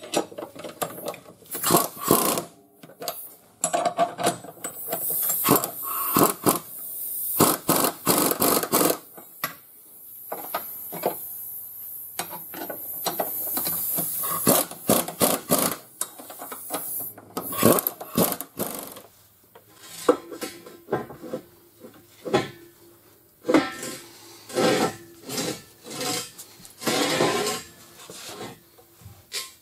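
Metal clanking and scraping of steel pinch weld clamps and bolts being fitted, with a pneumatic impact wrench running in spells. The longest spell is a steady stretch of several seconds midway.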